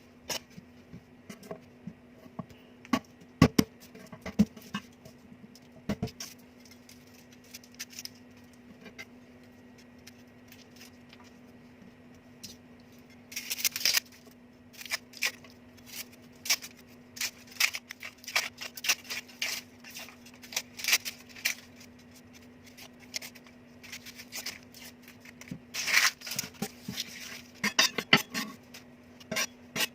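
Kitchen utensils and dishes knocking and clinking at irregular intervals, with brief rustling twice. A faint steady hum runs underneath.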